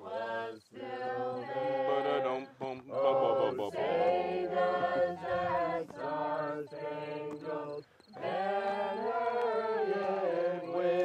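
Voices singing a slow song with long held notes, pausing briefly between phrases, including a short gap about eight seconds in.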